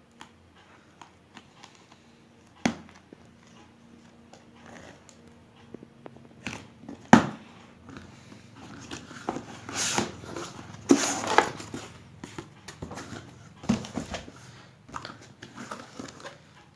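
Handling noise from a Jio phone's cardboard box: scattered clicks, taps and rustling, busiest in the middle of the stretch.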